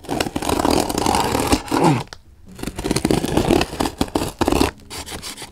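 Scissor blade slitting the packing tape along a cardboard box's seam: a scraping, tearing run of about two seconds, a short pause, then a second run of about two seconds.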